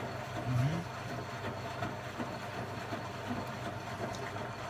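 Indesit 092 washing machine running an empty-drum Cotton 95 descaling wash: a steady low hum from the motor and turning drum.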